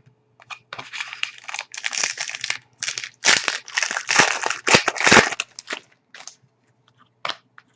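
Crinkling and rustling of trading-card packaging being handled, in quick bursts for about five seconds, then a few light ticks.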